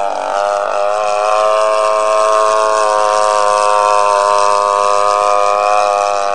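Radio-controlled Staggerwing biplane's model engine running at a steady buzzing pitch as the plane flies overhead, wavering briefly about half a second in and dropping slightly near the end.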